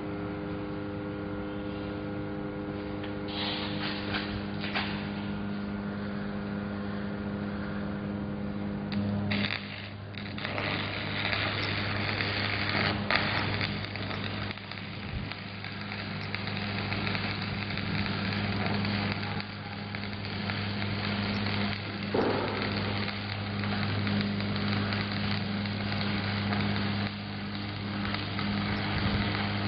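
A steady electrical hum. About nine seconds in, a stick-welding (shielded metal arc) electrode arc strikes and crackles and sizzles steadily to the end.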